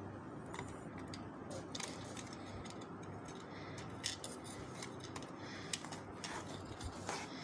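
Light scattered clicks and small metal taps as fingers fit the thin metal clock hands and their screw-on cap onto a battery clock movement's spindle.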